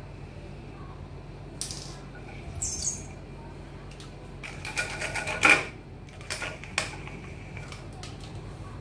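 Square 12–24 V 600 W brushless DC motor running unloaded, with a steady low hum and a faint high whine. Clicks and clattering knocks come in the middle as a hand handles the metal motor housing on the tile floor, the loudest a sharp clack about halfway through.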